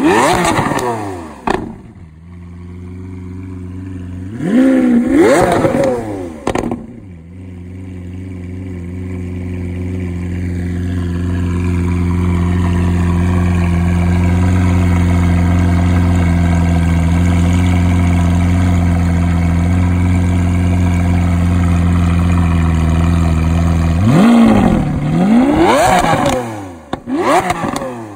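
Lamborghini Aventador LP700-4's 6.5-litre V12 through an Fi Exhaust valved exhaust system, blipped sharply twice in the first several seconds, then settling into a long steady idle, then revved hard two or three more times in the last few seconds.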